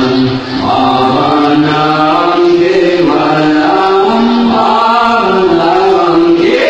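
Chanted vocal music from the dance routine's soundtrack: voices singing long held phrases together, with no drum beat.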